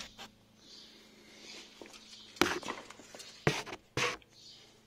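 Handling noise from a phone camera being moved about: three short rustling knocks over a faint steady low hum.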